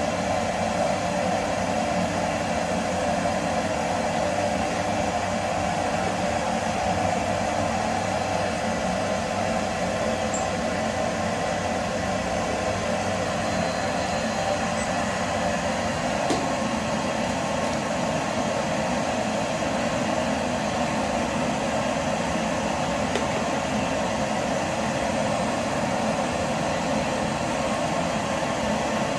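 Vacuum cleaner motor running steadily, a constant whirring hum with no change in pitch.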